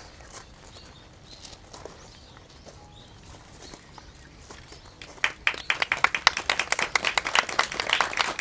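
A crowd starts applauding about five seconds in: dense clapping that builds and carries on. Before it there is a quiet stretch with faint bird chirps.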